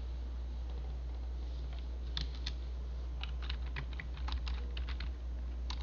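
Computer keyboard typing: a run of irregular keystroke clicks starting about two seconds in, over a steady low hum.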